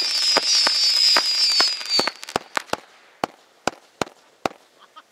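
Consumer firework going off: a high whistle, falling slightly in pitch, over rapid sharp pops until about two seconds in. Then a string of irregular pops and crackles that grow sparser and fainter.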